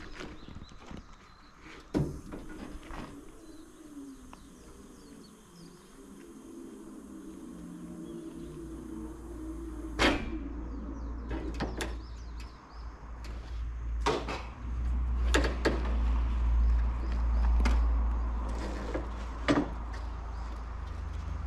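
Truck's power liftgate lowering: its motor starts with a steady hum about two seconds in and stops with a metal clank as the platform lands about ten seconds in. After that come several knocks and clanks from the metal platform as the motorcycle is wheeled off, over a low rumble.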